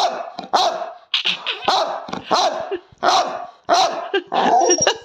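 Bulldog-type dog barking over and over, about one short bark every two-thirds of a second: demand barking for cuddles and attention.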